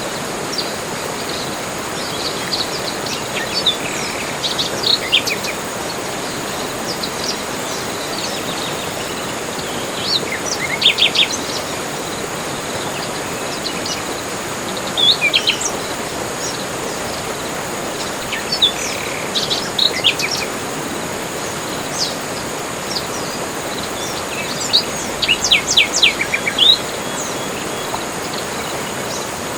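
Forest birds chirping and singing in scattered bursts of short, sharp notes over a steady background hiss, with a faint high continuous tone. The busiest bursts come near the start, around a third of the way in, and a dense flurry near the end.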